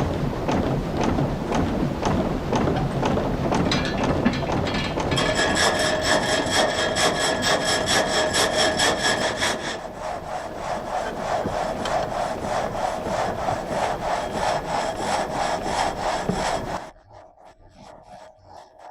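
Water-powered reciprocating frame saw cutting through a log in rhythmic strokes. For a few seconds in the middle, the cut carries a ringing, whining tone. The sound drops off abruptly near the end.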